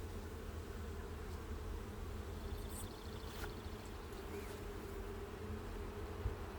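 Honeybees buzzing around an open hive during an inspection: a steady hum of many bees.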